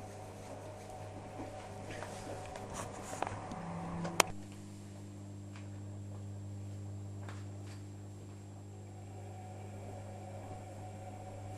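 Privileg Sensation 9415 washing machine running with a steady hum, with scattered small clicks and knocks. A single sharp click about four seconds in is the loudest sound, and after it the steady hum changes.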